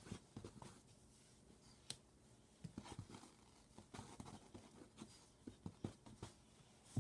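Faint, scattered rustling and scratching of hands rubbing a Puli dog's corded coat and the blanket under it.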